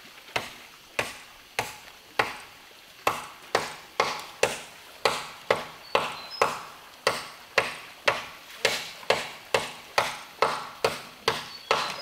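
Steady chopping, a blade striking wood, likely bamboo, at about two strokes a second. The strokes are a little slower and more spaced at first, then settle into an even rhythm.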